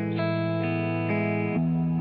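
Instrumental background music: sustained, effects-laden guitar chords, changing about every half second.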